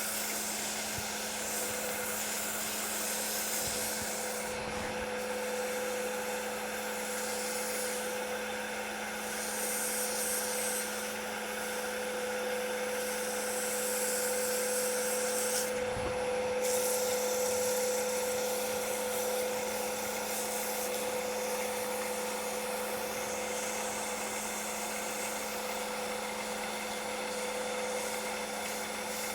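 Wood lathe running steadily with a constant hum and whine while 400-grit sandpaper is held against the spinning cherry workpiece, adding a soft hiss that swells and fades.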